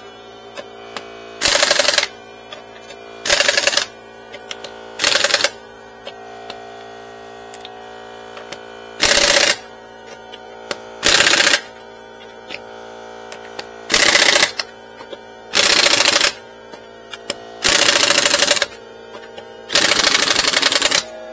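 Impact wrench running lug nuts onto a wheel in nine short rattling bursts, each under about a second and a half, with pauses of one to four seconds between them.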